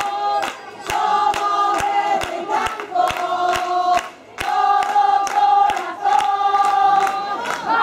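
A group of spectators singing a chant in unison, holding long notes, over a steady beat of about two hits a second.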